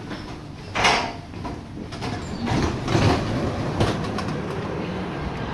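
Athens Metro train car running and slowing, with a steady low rumble inside the car, a short loud hiss of air about a second in, then more rattling and a sharp knock near the end as the train comes to a stop.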